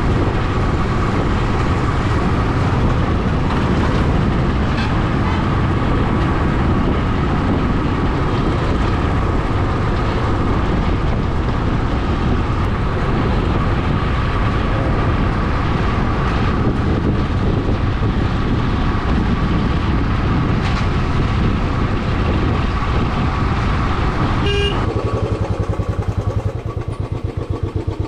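Royal Enfield motorcycle riding on the road, with engine and road noise, and a brief horn toot about 25 seconds in. Near the end the rushing noise falls away and the engine's slow, even beat comes through as the bike slows.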